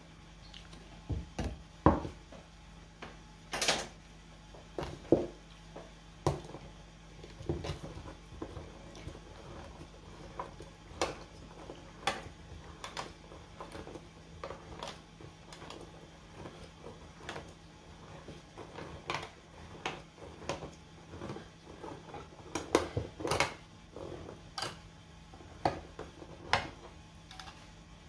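Scattered clicks and knocks of kitchen handling, with a hand-held can opener being worked around the rim of a metal can; a denser run of clicks comes a little past the middle, over a faint steady hum.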